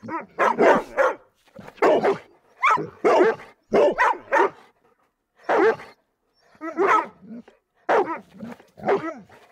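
A dog barking over and over, about a dozen short barks in quick groups of two or three with brief pauses between.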